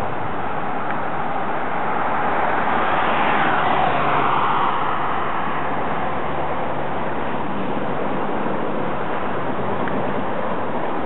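Steady roadside highway traffic noise. One vehicle passes a few seconds in, its sound growing a little louder and falling in pitch as it goes by.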